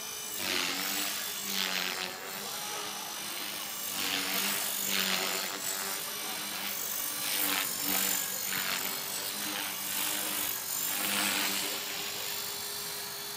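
HK-450 electric RC helicopter flying overhead: the motor and rotor whine holds a steady pitch that shifts slightly, while a rushing noise swells and fades several times as it manoeuvres.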